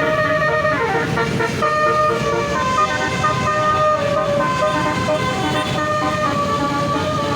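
Bus basuri telolet horn playing a tune: a string of held tooting notes that step from pitch to pitch, several tones sounding together.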